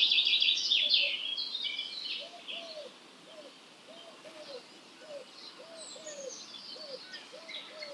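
Dawn chorus of wild songbirds: a loud burst of fast, high, twittering song for the first two seconds or so, then a run of short, soft, low notes repeated about twice a second, with fainter high song behind.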